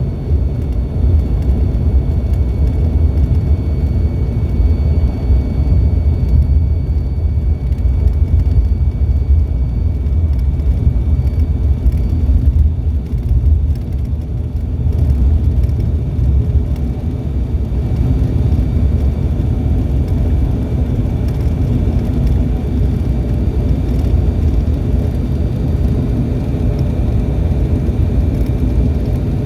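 Cabin noise inside an ATR 72-600 turboprop taxiing after landing: its Pratt & Whitney PW127 engines and propellers give a steady low rumble with faint steady high whine tones over it.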